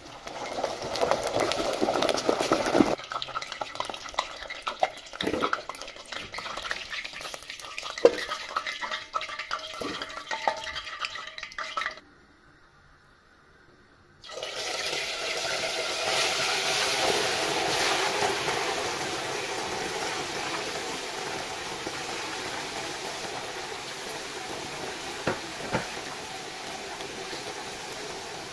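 A metal skimmer scraping and knocking against a stainless steel pot as deep-fried potatoes are lifted out of hot oil, with frying around it. After a short pause about twelve seconds in, a loud, steady sizzle of chunks of meat deep-frying in hot oil, slowly easing off.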